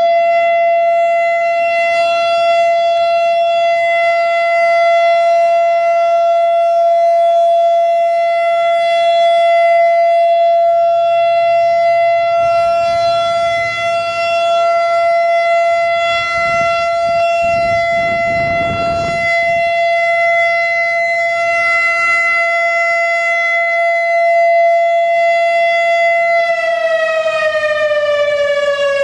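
Turkey Point emergency warning siren sounding one steady, loud tone during a siren test. Near the end its pitch begins to fall as it winds down.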